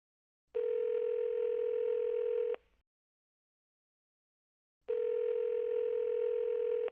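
Telephone ringback tone heard on the caller's end of the line: two steady rings of about two seconds each, a couple of seconds apart, while the called phone rings unanswered.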